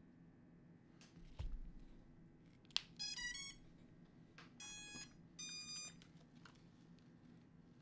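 FPV quadcopter powering up: a sharp click as the battery is plugged in, then the ESCs sound their startup tones through the motors, a quick run of stepped beeps followed by two longer beeps. A soft knock comes just before the click.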